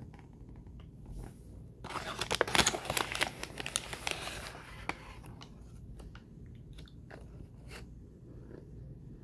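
Paper liner inside a box of Argo laundry starch crinkling loudly as it is pulled open, starting about two seconds in and lasting a few seconds. Then scattered soft clicks and crunches as the starch is spooned and eaten.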